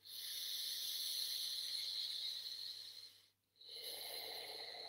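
A man breathing slowly through his nose with his mouth closed. He draws a long, steady breath in for about three seconds, pauses briefly, then starts a slow breath out.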